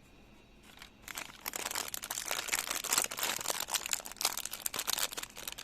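Plastic packaging of a LOL Surprise toy crinkling as it is handled and opened, starting about a second in and continuing densely.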